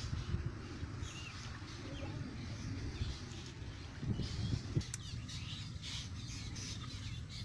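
Small birds chirping now and then over a low steady background, with dull low sloshing and thumps from a person wading through pond water at the start and again about four seconds in.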